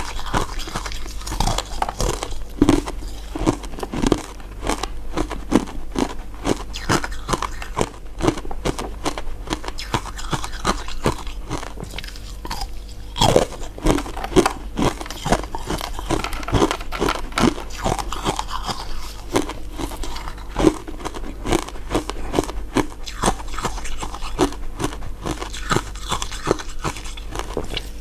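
Close-miked crunching, biting and chewing of hard, crisp crystal ice dessert pieces: a steady run of sharp cracks and crackles, with a few louder bites such as one about a third of the way in.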